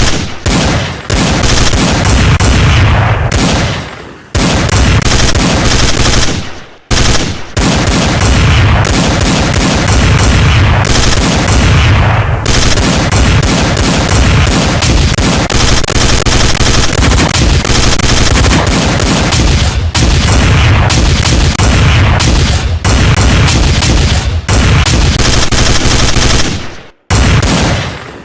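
Machine-gun fire sound effect, loud and rapid, running almost without a break, with short pauses about 4, 7 and 27 seconds in.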